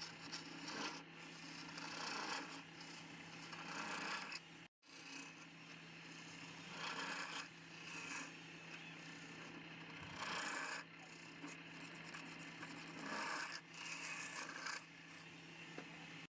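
Wood lathe running with a steady hum while the spinning workpiece is worked in repeated passes, giving a rasping, rubbing sound that swells every second or two. It breaks off for an instant about five seconds in.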